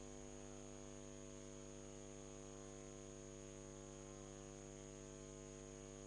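Near silence with a faint steady electrical mains hum and a thin high whine.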